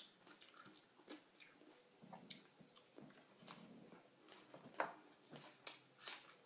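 Faint close-up chewing and eating: soft mouth sounds and scattered small clicks, with a few sharper clicks near the end.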